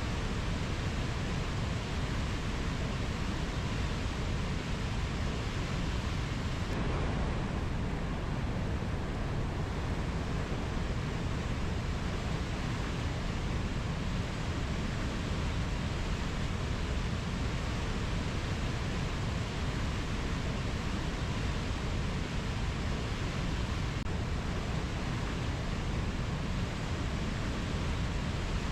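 Steady, even rushing of water, with no bird or insect calls standing out.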